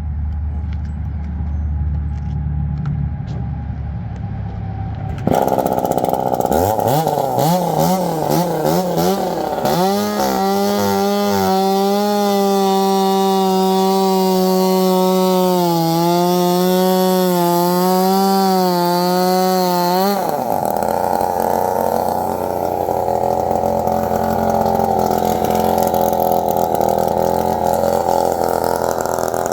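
A low engine rumble, then a two-stroke chainsaw starts about five seconds in. It is revved up in wavering surges and held at a high, steady pitch for about ten seconds. About two-thirds of the way through its pitch drops and the sound turns rougher and noisier.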